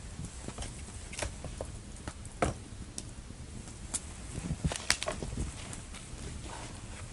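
Wood being worked with an axe: scattered single knocks and cracks at irregular intervals, the sharpest about two and a half seconds in.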